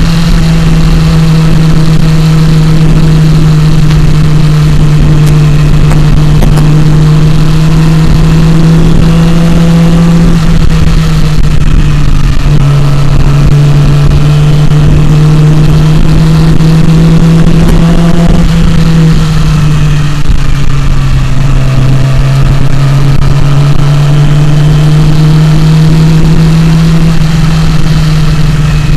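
Yamaha YZF-R6 inline-four engine running steadily under way, heard loud from a mount on the bike, with air noise rushing past. Its note drops twice, about twelve and twenty seconds in, and climbs slowly again after each drop.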